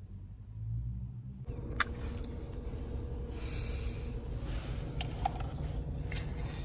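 Faint steady low rumble inside a car's cabin with a thin steady hum and a few light clicks, starting about a second and a half in.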